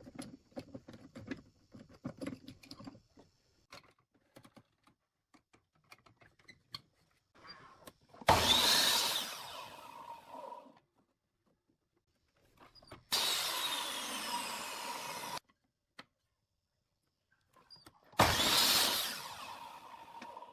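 Handheld power tool working wood in three short runs of about two seconds each, each starting suddenly and fading, after several seconds of faint tapping and handling.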